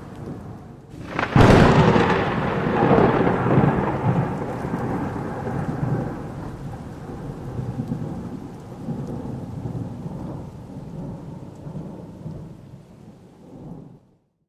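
Thunder: a sharp crack about a second and a half in, followed by a long rolling rumble that slowly fades and then cuts off abruptly.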